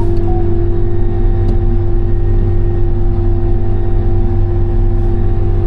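Case IH 8120 combine running steadily as it drives, a low drone with a steady whine over it. A short beep sounds just as it begins.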